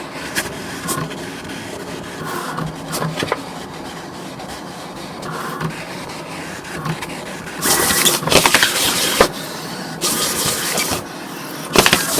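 Vinyl cutting plotter at work: its carriage and blade move over the vinyl with a steady mechanical whir, and louder, faster passes come about eight seconds in, again around ten seconds, and near the end.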